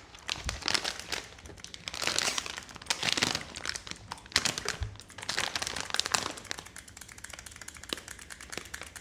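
Blind-box packaging being handled and opened, giving irregular crinkling and crackling throughout.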